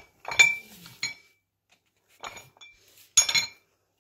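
Steel adjustable dumbbells being handled, their handles and weight plates knocking together: about four metallic clanks, several with a short ring.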